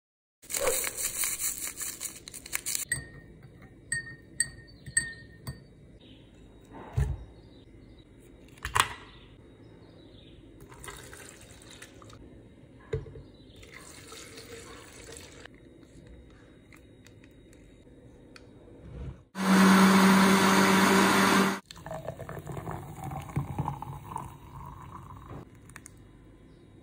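Ingredients and water being poured into a plastic blender jar with handling clicks and knocks, then an electric blender runs loudly for about two seconds, blending avocado, milk, coffee and Oreo into a thick drink. After it stops, the blended drink is poured into a glass with a rising tone as it fills.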